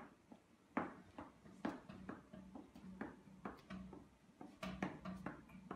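A string of faint, sharp clicks and taps, irregular at about one or two a second, over a faint steady low hum.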